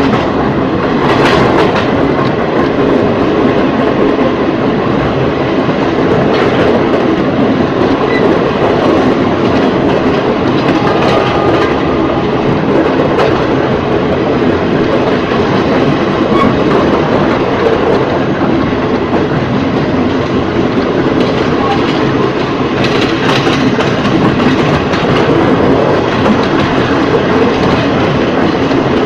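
Ex-JR 203 series electric multiple unit running on jointed track: a steady loud rumble of the train in motion, with wheels clicking over rail joints now and then, most clearly about a second in and again near the end.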